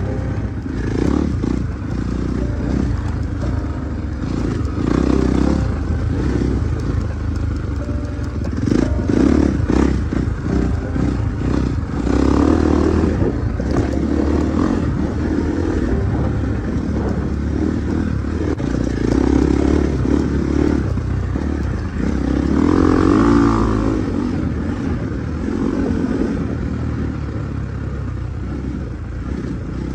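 Husqvarna 450 motorcycle engine running, its sound swelling and easing in surges every few seconds as the throttle is worked.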